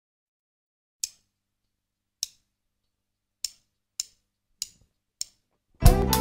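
Count-in clicks, two slow and then four at double speed, lead into a songo Latin groove. The groove, with drum kit and band, starts just before the end.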